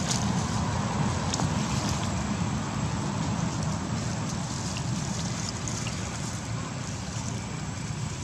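Steady low outdoor rumble with no clear pitch, with faint light crackles scattered through it.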